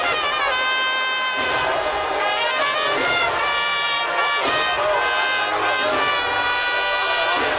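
Spanish Holy Week brass band (agrupación musical) of trumpets and trombones playing a processional march, with sustained brass chords that change every second or so.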